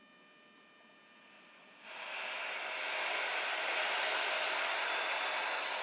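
Philips RL191 portable radio switched on to the FM band and giving out steady static hiss, which fades in about two seconds in: the radio is not yet tuned to a station.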